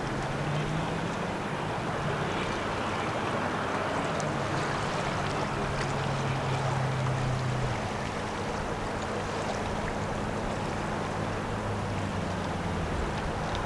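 Low steady drone of a passing lake freighter's engines, its pitch wavering a little, over a wash of water and wind noise.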